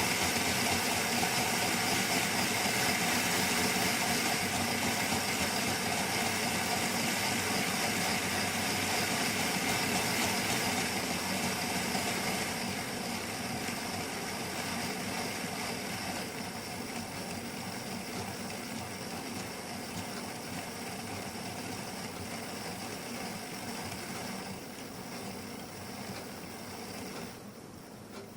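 Model locomotive's DCC sound decoder playing a steady engine idle sound. It grows gradually quieter from about halfway through and drops away further near the end.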